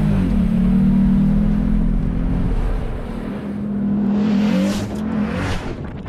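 A vehicle engine running, with a surge in level near the end.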